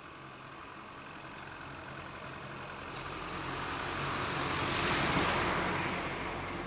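A passing vehicle: its noise swells gradually to a peak about five seconds in, then fades.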